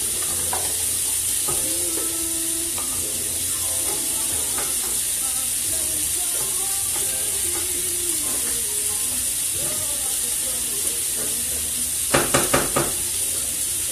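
Pork chops and corn frying on the stove: a steady sizzle of hot grease, with a spoon stirring in the pot. About twelve seconds in, four quick knocks of a utensil against the pot.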